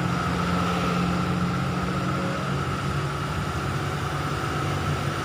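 A vehicle engine running steadily under an even rush of road noise, with a constant high whine over it.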